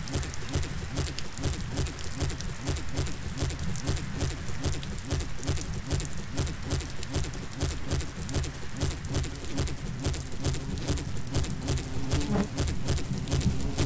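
Dense, rapid pattering clicks in a steady rhythmic texture, with a repeating figure about four times a second; a buzzing drone comes in about ten seconds in.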